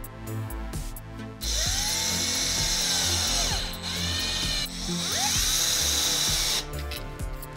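Cordless drill/driver driving a screw through corrugated plastic conduit into a wooden block. It runs from about a second and a half in until near the end, with a short break partway, and its pitch glides up and down.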